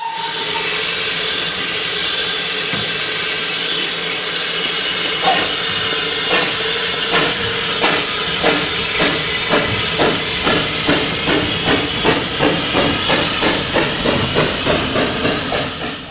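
Narrow-gauge Baldwin-type 2-4-2T steam locomotive Southern 762 'Lyn' pulling away with a train. Steam hisses steadily, then from about five seconds in its exhaust beats begin, slow at first and quickening to about two to three a second.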